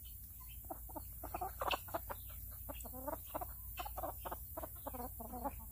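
Chicken clucking in a quick series of short clucks.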